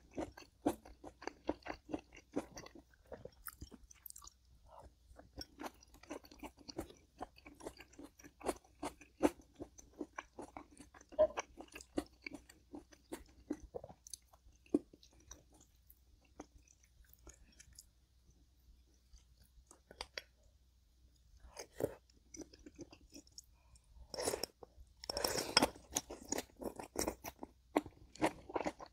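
A person chewing and biting food close to the microphone, with many small crunches and mouth clicks, and a louder stretch of chewing about 25 seconds in.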